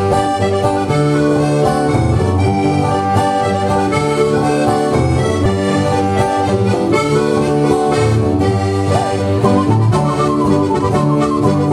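Diatonic button accordion (Sardinian organetto) playing a traditional tune, with acoustic guitar accompaniment.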